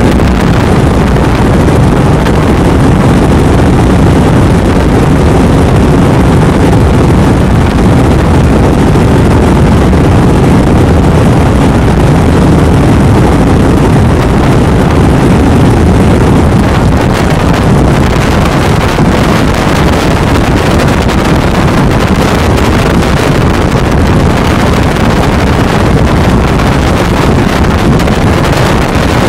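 Robinson R44 helicopter in steady flight: loud, even rotor and engine noise, heard from inside the cabin with wind on the microphone.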